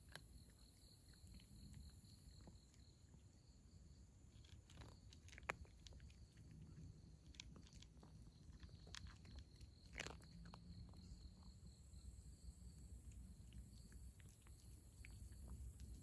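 A cat chewing dry kibble and wet food, faint irregular crunching and clicking of its teeth, with two sharper crunches about five and a half and ten seconds in.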